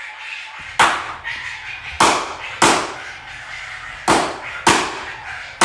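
Five loud, sharp bangs, each with a short ringing tail: one about a second in, then two pairs, each pair about half a second apart.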